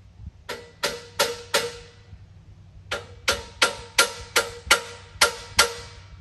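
Hammer blows on the steel track frame of a Woodland Mills HM130 MAX sawmill, tapping it into square. Sharp strikes about three a second, each with a short metallic ring: four, a pause of about a second, then nine more.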